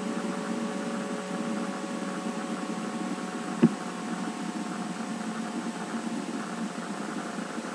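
Steady electrical hum and hiss of the recording setup, with several steady tones and a fan-like background, broken by a single sharp click about three and a half seconds in.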